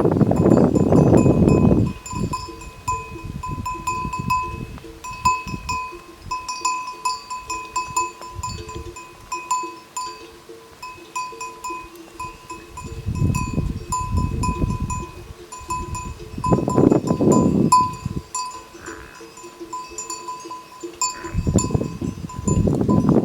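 Bells on grazing water buffalo clanking irregularly. There are a few louder, rough low bursts of a second or two: one at the start, two in the middle and one near the end.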